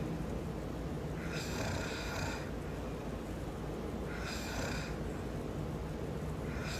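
A man snoring in his sleep, with a hissing breath about every three seconds over a steady low rumble.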